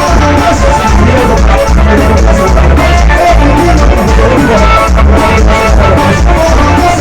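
Loud music with heavy bass and a drum beat.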